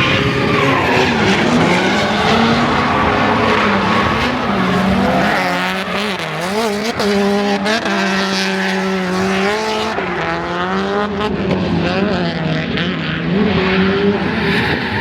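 Drift car engine revving hard, its pitch rising and falling and bouncing rapidly up and down about halfway through, over a steady screech of tyres sliding.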